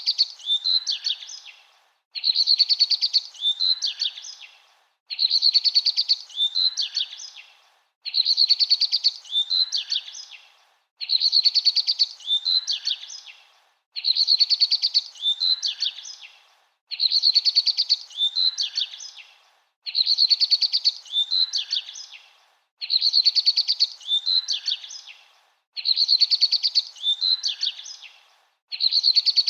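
A songbird's song phrase, a fast trill followed by a few quick notes, repeated exactly alike about every three seconds with silence between: a looped birdsong recording.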